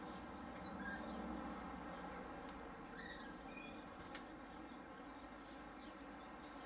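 Birds chirping: scattered short, high chirps, the loudest about two and a half seconds in, over a faint steady hum.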